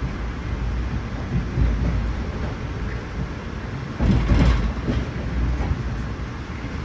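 Amtrak Downeaster passenger train running on the rails, heard from inside the coach: a steady low rumble of wheels and car noise. It grows louder for about a second, about four seconds in.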